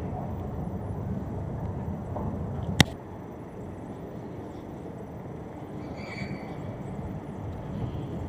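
Steady low rumbling background noise of a large train-station concourse, with one sharp click nearly three seconds in.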